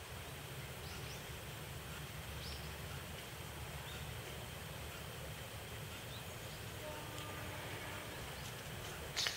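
Quiet outdoor ambience: a steady low rumble and hiss with a few faint, short bird chirps in the first few seconds.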